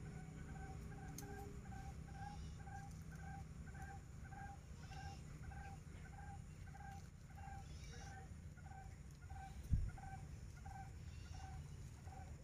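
A bird repeating one short, low note at a steady pitch, evenly about five times every two seconds, over a steady low hum. A single thump sounds near the end.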